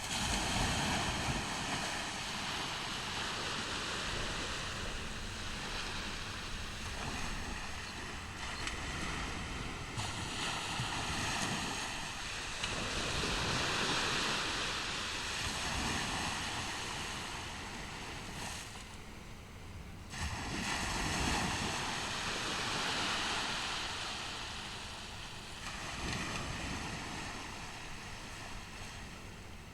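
Ocean surf on a beach: waves breaking and washing in, the noisy wash swelling and falling back every few seconds.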